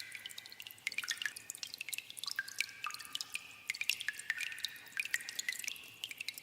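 Water dripping in a cave: many irregular drops, several a second, each landing as a sharp plink with a short pitched ring.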